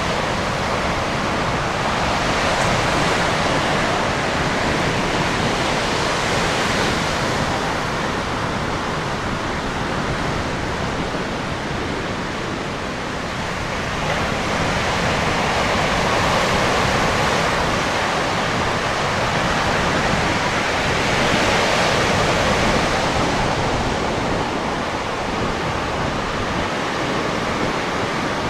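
Ocean surf washing steadily, swelling and easing every few seconds.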